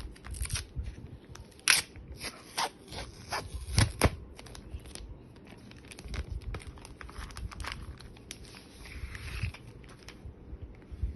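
Packaging crinkling and crackling with scattered sharp snaps as a drawing tablet is pulled out and unwrapped; the loudest snaps come about two and four seconds in.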